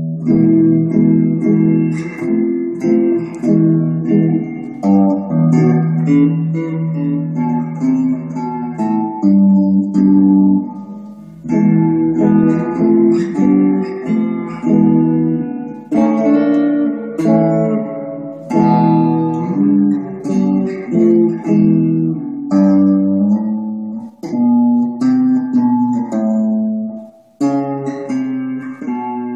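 Gibson Les Paul electric guitar played through an amplifier: chords strummed and picked one after another, each left to ring before the next. The guitar lets a chord die away briefly twice, about ten seconds in and near the end.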